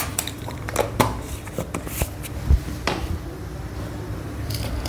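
A series of light clicks and taps from handling a plastic jar and spoon as sugar is spooned over soaked jowar grains in a steel pan, over a steady low hum.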